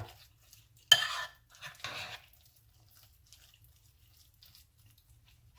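A sharp clink, like a utensil struck against a bowl, about a second in, followed by a brief scrape, then quiet room tone.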